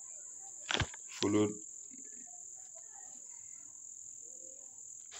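Steady high-pitched insect trill, with a sharp click just under a second in and a brief murmur from a man's voice right after.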